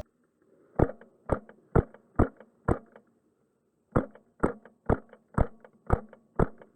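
Wolverine MTW HPA airsoft rifle firing on semi-auto: two strings of sharp, evenly paced shots, about two a second. Five shots, a pause of just over a second, then six more.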